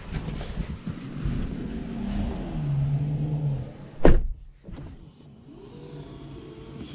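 Bentley Continental GT driver's door shut with one heavy thud about four seconds in. Before it there is rustling and a short electric-motor hum; after it, a quieter motor whir.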